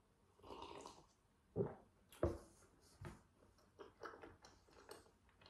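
A sip of cola from a paper cup, followed by two sharp thuds around the two-second mark, then soft mouth clicks and chewing.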